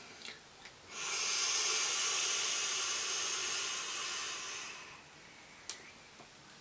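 Rebuildable dripping atomizer with a 0.38-ohm Clapton coil fired at 42 watts during a drag: a steady hiss of the coil vaporising the juice and air drawn through it, lasting about four seconds. A single sharp click follows near the end.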